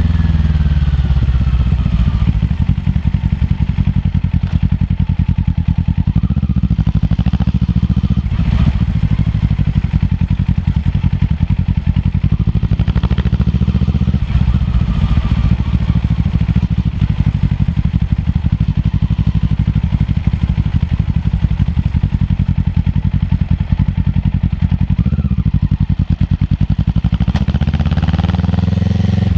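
Kawasaki ER-6f's 650 cc parallel-twin engine running through a Yoshimura full-system exhaust while riding at a steady pace. The engine pitch drops in the first couple of seconds and changes again near the end.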